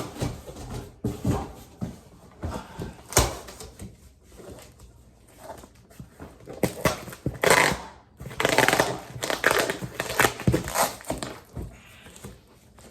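Cardboard shipping box and packing material being handled and pulled apart: irregular rustling, scraping and squeaking, with a couple of sharp knocks early on and a longer spell of handling noise in the second half.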